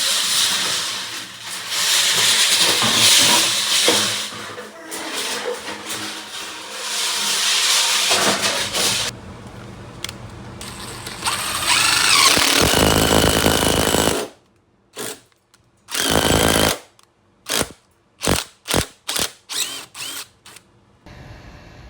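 Power tools working steel: a long stretch of harsh grinding noise, then a whining run, then the tool triggered in a string of short bursts.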